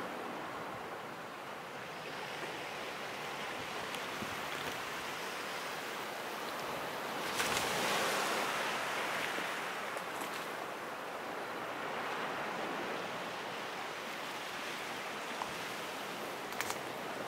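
Ocean waves washing steadily against a rocky ledge, swelling briefly about seven seconds in.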